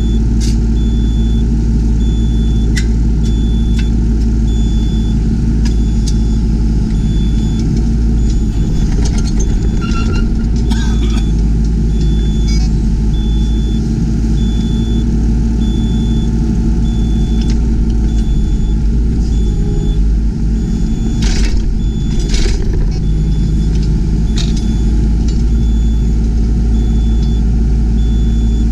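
Yanmar ViO20 mini excavator's three-cylinder diesel running steadily under work, with occasional knocks and clunks from the machine. A high beep pulses on and off throughout.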